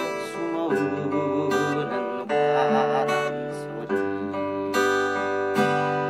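Acoustic guitar strumming and picking chords, with a new chord struck every second or so.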